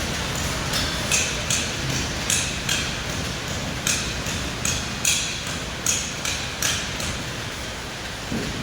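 A hammer tapping: about a dozen sharp strikes at an uneven pace, one or two a second, over a steady hiss, stopping about a second before the end.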